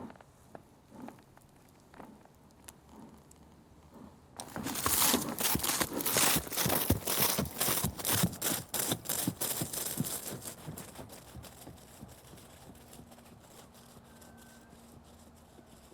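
Galloping horse hoofbeats. A few faint scattered hoof thuds, then about four seconds in a sudden loud run of rapid drumming hoofbeats with a gritty crunch of ground underfoot, which fades away over the next several seconds as the horses pass and recede.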